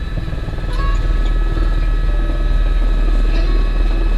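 Helicopter heard from inside the cabin during the landing approach. There is a heavy low rotor rumble under several steady high turbine whines, and it gets a little louder about a second in.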